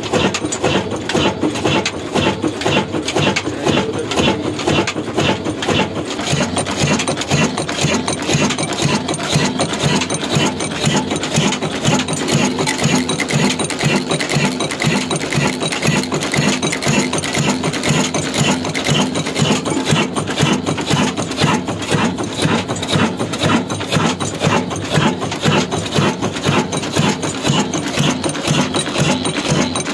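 Old Ruston Hornsby stationary diesel engine running steadily, with a fast, even mechanical clatter.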